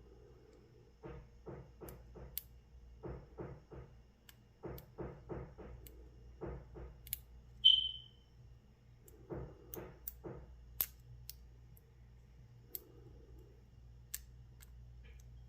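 Lock pick and tension wrench working the pins of a Brinks 40 mm brass padlock during single-pin picking: short runs of soft scratchy strokes with faint sharp clicks. About 8 s in, one brief high metallic ping rings out and fades, the loudest sound.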